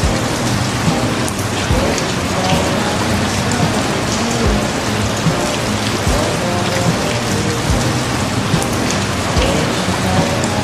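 Steady rain, an even hiss, with short low thumps every second or two and faint wavering tones underneath.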